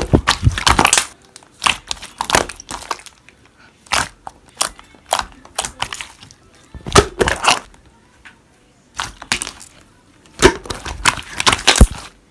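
Slime being squished and pressed by hand: bunches of sharp crackling pops and clicks, with short quiet gaps between them.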